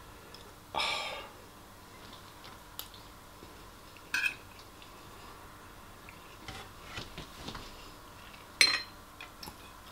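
A metal spoon scraping and clinking against a ceramic bowl of rice in several separate short strokes, the loudest near the end.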